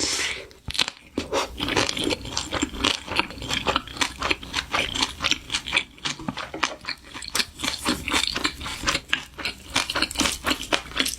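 Close-miked crunchy chewing and biting of food, a dense, uneven run of crisp crunches several times a second.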